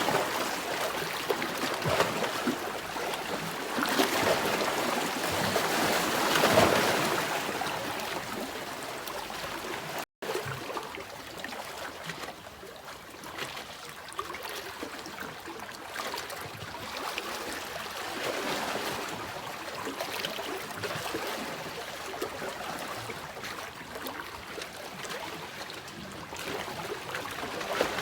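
Sea waves washing in, the rush of water swelling and easing every few seconds. The sound cuts out for an instant about ten seconds in and goes on more evenly and quieter after.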